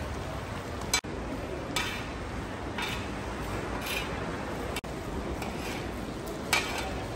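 A long-handled metal skimmer scraping against the wall of a giant plov kazan in several short strokes, roughly one a second, over the steady hiss of the carrots and oil cooking in the cauldron.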